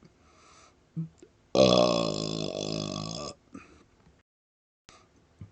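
A man's short, low burp about a second in, then a long, loud belch lasting nearly two seconds with a wavering pitch.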